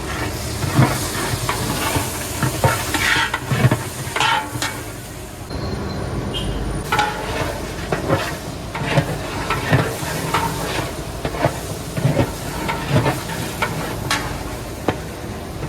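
Food sizzling as it fries in a large cooking pot, with a metal stirring spoon scraping and knocking against the pot in an irregular rhythm.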